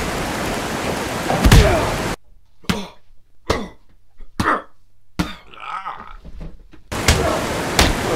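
Fight-scene sound effects: a series of heavy thuds and hits, with a short grunt-like vocal noise among them. A background rush drops out for a few seconds in the middle and returns near the end.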